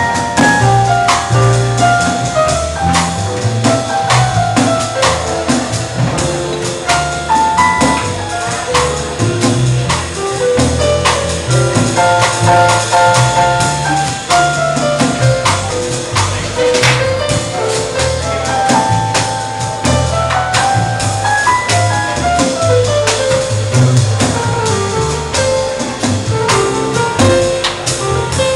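Jazz quartet playing a bossa nova live: a Roland keyboard, a plucked upright double bass, guitar and a Pearl drum kit, with a stepping melody line over a walking bass and light drums.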